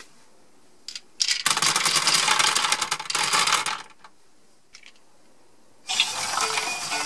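A cupful of small plastic Lego GBC balls poured into a plastic Lego bin, a dense rattling clatter lasting about two and a half seconds. A second stretch of the same clattering starts about six seconds in.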